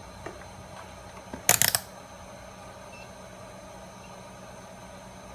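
A brief clatter of several quick clicks about a second and a half in, as small repair tools are handled on the workbench, over a steady electrical hum.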